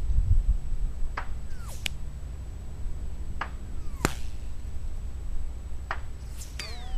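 Sig 522 .22 LR rifle being fired, a handful of sharp cracks spaced unevenly a second or two apart, the loudest about four seconds in. Wind rumbles on the microphone underneath.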